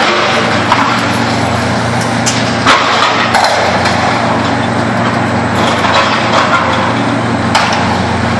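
Bridge demolition: a heavy engine running steadily, with scattered sharp cracks and knocks as the structure is broken up, the loudest a little under three seconds in.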